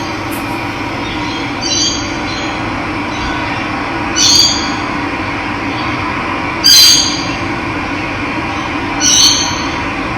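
Running water rushing steadily, with a bird calling a short, high call four times, about every two and a half seconds; the third call is the loudest.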